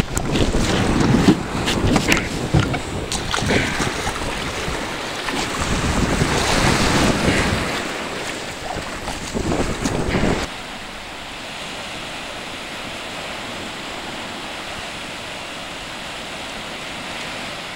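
Small surf breaking and washing up a sandy beach, with wind buffeting the microphone and scattered handling knocks during the first part. About ten seconds in there is an abrupt change to a quieter, steady wash of waves.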